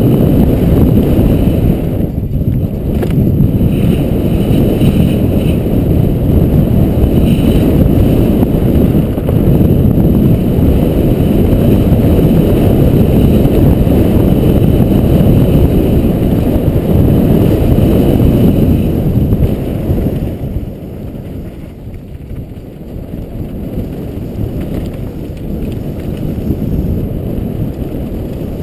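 Wind rushing over a helmet-mounted camera's microphone, mixed with the rumble and rattle of a downhill mountain bike's tyres on a dry dirt trail at speed. It turns noticeably quieter about twenty seconds in.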